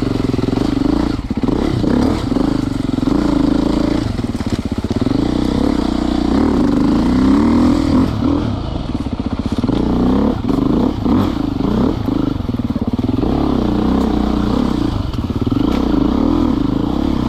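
Dirt bike engine revving up and down repeatedly as it is ridden along singletrack, with scattered clattering knocks from the bike over rough ground.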